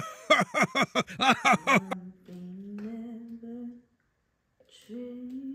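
A person sings without accompaniment: a quick run of notes swooping up and down for about two seconds, then a held hummed note, a short break, and a second hummed note.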